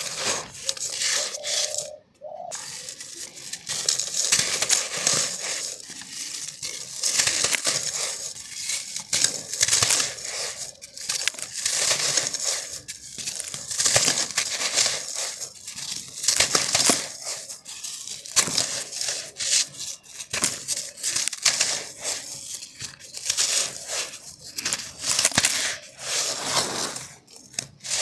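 Dry black sand being crushed and crumbled by hand in a clay pot: dense, gritty crunching and crackling that swells in surges every second or two.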